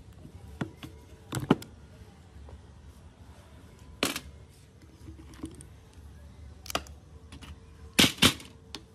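Metal parts and tools of a chainsaw being taken apart, clinking and knocking against each other and the bench: a few scattered sharp clacks, the loudest a double clank about 8 seconds in as a steel flywheel is set down in a metal parts tray.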